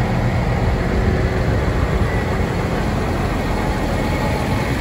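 Diesel tractor engines running steadily as a line of tractors drives slowly past close by.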